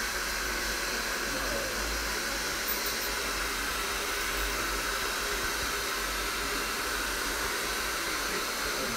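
Handheld hair dryer blowing steadily, a constant rushing hiss with no breaks.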